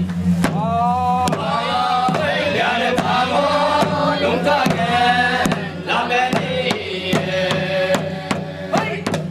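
Traditional chant sung in a winding melody over regular percussive beats a little under a second apart, with a steady low hum underneath.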